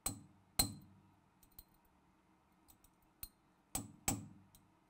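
Sharp, irregular cracking clicks from an optimised forged carbon fibre tensile specimen under heavy load in a testing machine: fibres snapping as it nears its breaking point. The cracks come singly with fainter ticks between them, the last two close together near the end.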